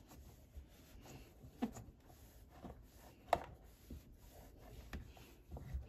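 Damp cloth wiping the plastic interior of a fully automatic coffee machine's open side compartment: faint rubbing with a few light knocks, the sharpest a little past three seconds in.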